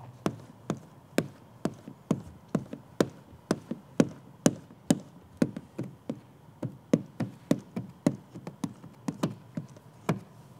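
A plastic squeegee worked down wet paint protection film on a car's B-pillar in short strokes, making a steady run of sharp taps, about two a second.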